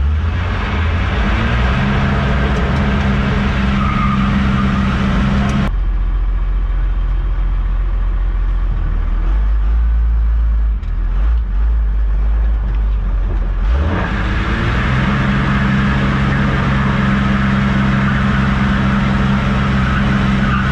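A 1991 Dodge Ram 250's 12-valve Cummins turbo-diesel inline-six running steadily while the truck drives, picking up slightly in the first couple of seconds. Its sound changes abruptly twice, to a deeper, duller rumble about six seconds in and back again near fourteen seconds.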